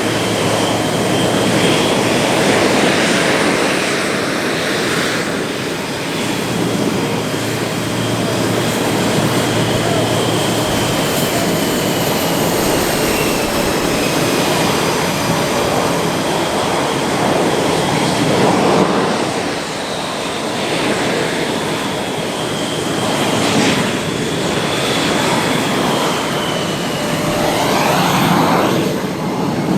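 Boeing F/A-18 Super Hornet jet engines running loud: a continuous turbofan roar with a high turbine whine that glides slowly in pitch. The roar swells several times.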